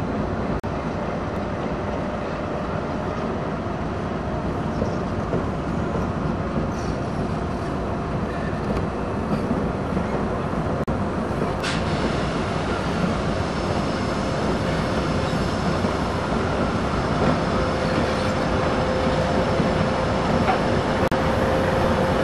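2TE116 twin-section diesel locomotive passing close by, its 5D49 V16 diesel engines running steadily with a faint steady whine, growing gradually louder as it nears. A short sharp click comes about halfway through.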